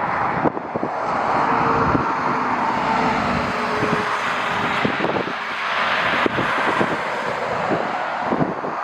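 Jet airliner engines running as the aircraft passes, a steady rushing noise with a faint whine in the first few seconds, mixed with gusts of wind buffeting the microphone.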